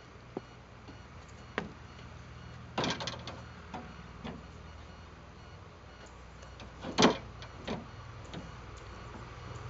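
A series of separate knocks and clunks, a quick cluster about three seconds in and the loudest about seven seconds in, over a low steady hum.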